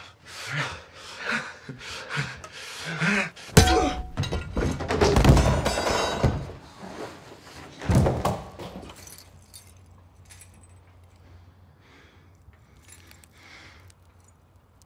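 A heavy thud from a fist fight, followed at once by a loud crash of breaking ceramic and tile that runs for a few seconds, then a second hard impact. After that only faint scuffs and knocks are heard.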